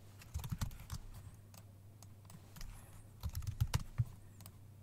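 Computer keyboard typing in two short bursts of keystrokes, one about half a second in and another just past three seconds, over a faint steady low hum.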